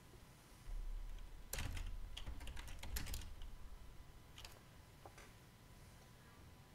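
Computer keyboard being typed on: a scattering of faint keystrokes, most of them in the first half, then a few sparser ones.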